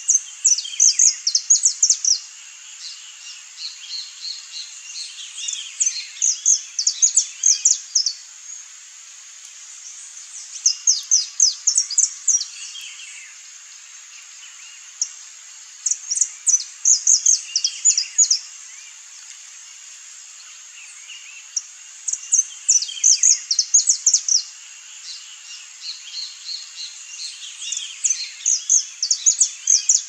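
Saffron finch singing: six phrases of quick, sharp high notes, each two to three seconds long and coming about every five seconds, over a steady high hiss.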